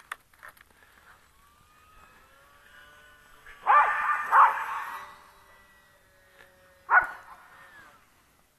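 Australian shepherds barking: two loud barks about three and a half and four and a half seconds in, and another near seven seconds. Under them runs the faint steady whine of the small electric RC biplane's motor, gliding gently in pitch.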